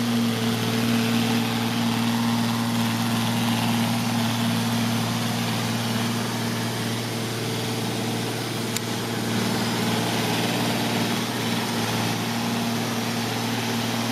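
Neato XV-11 robotic vacuum cleaner running across a hardwood floor: a steady motor and fan hum with an even hiss over it.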